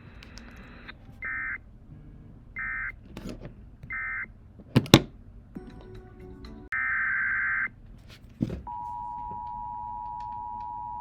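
Emergency Alert System SAME data bursts: three short bursts of rasping digital tones, then a longer one. About three-quarters of the way in, the steady two-tone EAS attention signal starts and holds. A couple of sharp clicks fall between the bursts.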